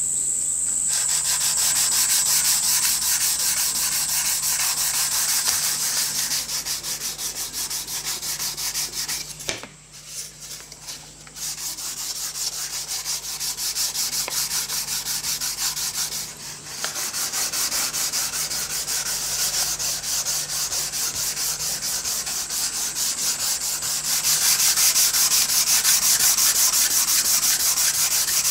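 Hand sanding a sealer-coated timber panel with 360-grit no-fill paper on a soft sanding block: quick back-and-forth rasping strokes, flatting the nitrocellulose sanding sealer ready for the top coat. There is a brief pause about ten seconds in, and the strokes are loudest near the end.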